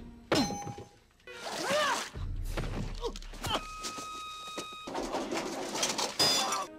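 Slapstick film soundtrack: several sudden heavy thunks of blows landing, over music.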